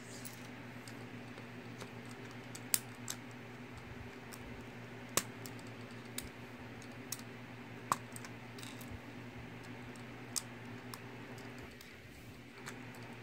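Mega Bloks plastic building bricks clicking as they are handled and pressed together: a scatter of sharp, separate clicks, irregularly spaced, over a steady low hum.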